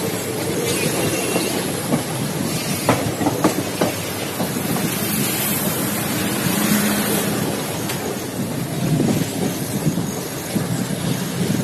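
Passenger train running along the track, heard from an open coach doorway: a steady rumble of wheels on rail, with a quick run of sharp clicks about three seconds in as the wheels cross rail joints.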